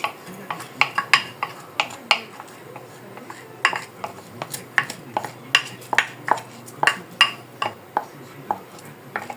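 A metal spoon clinking and scraping against a cooking pot as the pot's contents are stirred and worked, in sharp irregular knocks about two a second.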